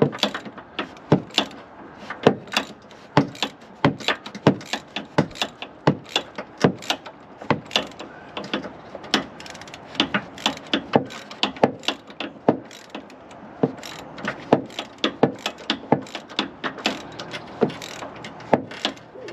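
Hand ratchet wrench clicking in quick runs as its handle is swung back and forth, tightening a nut on a suspension bolt.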